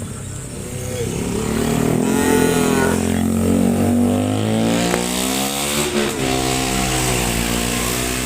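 Several cows mooing loudly, long drawn-out moos that overlap one another and bend in pitch, loudest in the middle.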